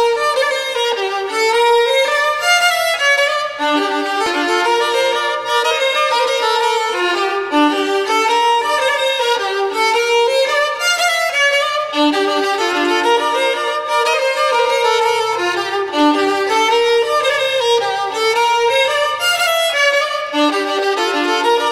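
Instrumental music: a melody of quick, short notes in phrases that repeat about every two seconds.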